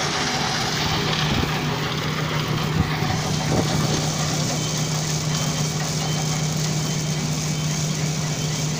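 Vertical shaft impact stone-crushing plant running: a steady mechanical drone with a constant low hum under a dense hiss of machinery and crushed aggregate on the conveyors. Two knocks come in the first three seconds, and faint short high beeps repeat in the second half.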